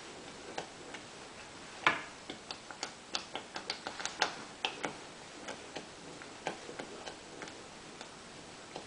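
Irregular clicks and pops from a stainless steel pot of thick, bubbling black sesame porridge being stirred with a wooden spoon, densest in the middle with one sharper knock about two seconds in.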